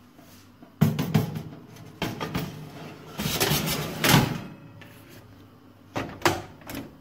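Oven door being opened and a baking tray of buns slid in over the metal oven rack: a few knocks, then a scrape ending in a loud clunk about four seconds in, and two sharp knocks near the end as the tray settles or the door shuts.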